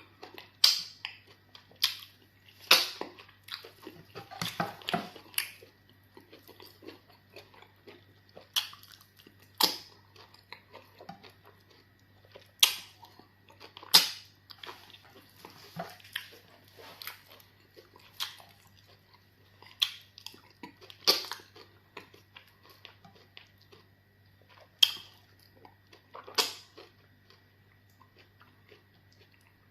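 Close-up mouth sounds of eating amala fufu with okra soup: wet smacks and chewing, sharp and irregular, every second or two, over a faint steady hum.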